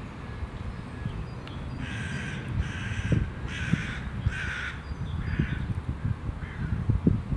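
A crow cawing, a run of six harsh caws about two seconds in, the last two fainter, over a low rumble with a few dull thuds.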